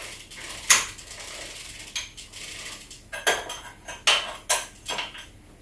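Metal clinks and scrapes of a spanner tightening a pedal into the left crank arm of a folding e-bike, turned counterclockwise on the pedal's reverse thread. Irregular sharp clanks, several of them between about three and five seconds in.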